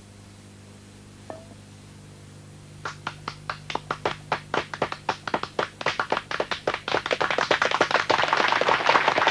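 Clapping that starts with a few single claps about three seconds in and quickens into continuous applause near the end.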